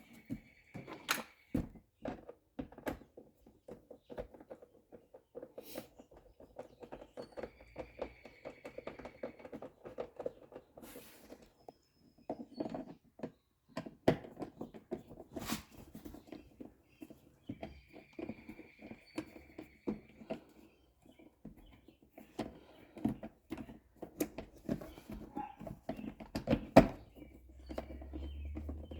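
Screws being driven back into the plastic air-filter box lid: an irregular run of small clicks, ticks and plastic knocks, with a short faint high whine heard three times.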